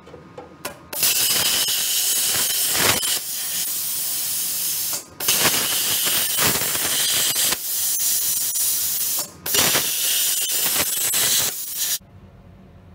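Plasma cutter cutting out the old steel rear inner wheel arch, a loud steady hiss. It starts about a second in, breaks off briefly twice, and stops abruptly near the end.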